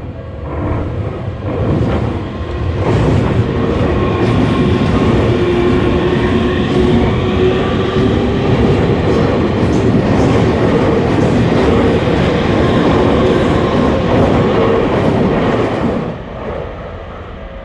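A train passing a railroad crossing: a loud rumble with wheels clacking over the rail joints builds over the first few seconds, holds, then falls away sharply about sixteen seconds in. The crossing's warning bell is heard faintly at the start and again as the train's noise drops.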